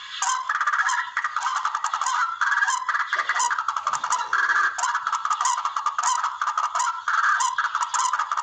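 Barred rail (tikling) calling: a recorded call played as a hunting lure, with rapid, continuous repeated notes that never pause.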